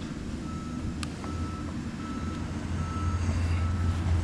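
A vehicle's reversing alarm beeping, a short single high tone repeating a little more than once a second, over a steady low rumble. One sharp click about a second in.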